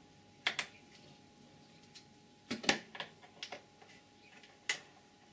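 Scattered sharp clicks and light taps from a hex-bit hand tool working the screws of an air compressor's plastic pump-head cover and from the plastic cover being handled. They come in pairs and small clusters, the loudest about two and a half seconds in.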